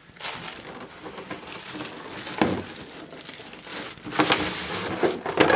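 Cardboard box flaps and plastic packaging being handled: continuous rustling and crinkling, with a single dull knock about halfway through and louder rustles near the end.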